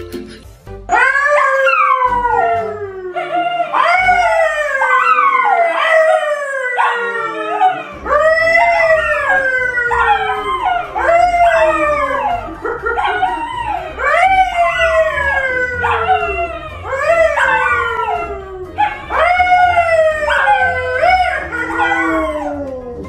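A yellow Labrador and a brown poodle howling together, with a man howling along with them: a series of long howls that each slide down in pitch, starting about a second in and overlapping one after another.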